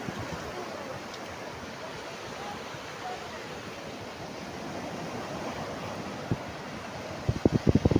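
Steady wash of sea surf with wind. Near the end, a run of loud low buffeting bursts of wind on the microphone.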